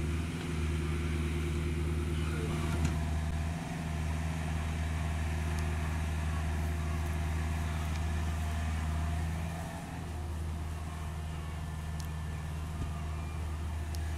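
CAT 305.5E2 mini excavator's diesel engine running steadily while it digs dirt, with one sharp clank about three seconds in.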